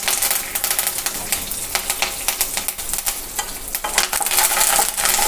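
Hot oil sizzling and crackling as fresh curry leaves splutter in it with peanuts and dried red chillies, a South Indian tempering (oggarane), stirred with a spatula in a non-stick pan. Many fine pops run through the steady sizzle.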